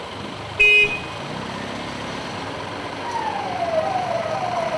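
A vehicle horn sounds once, short and loud, about half a second in, over a running vehicle engine. From about three seconds in, a vehicle siren starts: a quick repeating falling wail, about two sweeps a second.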